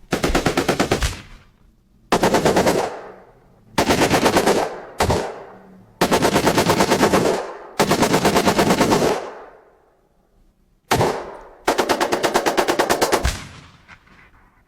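AI-generated sound effect of an intense gunfight: about eight bursts of rapid automatic gunfire, each a second or so long and trailing off in echo, with short gaps between.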